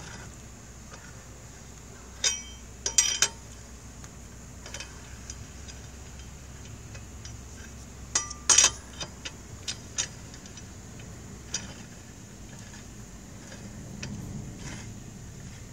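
Metal lug nuts clinking against the wheel and studs as they are put on by hand and not yet tightened: two clusters of sharp, ringing clinks, about two seconds in and about eight seconds in, then a few lighter ticks.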